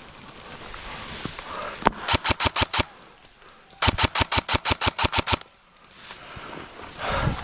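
Airsoft guns firing on full auto: a single shot, then a short burst of about seven rounds and, a second later, a longer burst of about a dozen, at about eight rounds a second.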